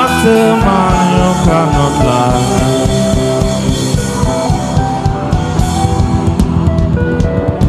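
Worship band music with no lead voice: held chords over a drum kit, the drumming getting busier and sharper from about five seconds in.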